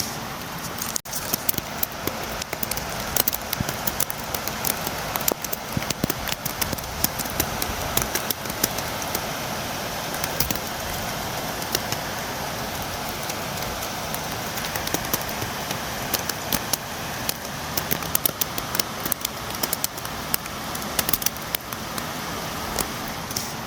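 Steady rain, a dense hiss with many sharp drops tapping close by, as of rain beating against a window, with a brief dip in level about a second in.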